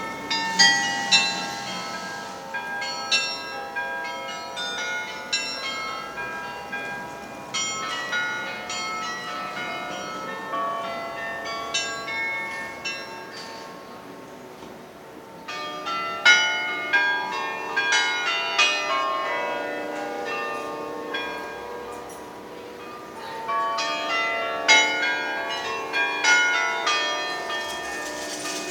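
A church carillon playing a tune: many tuned bells struck in quick succession, their ringing overlapping. The music softens for a few seconds around the middle, then comes back louder and busier.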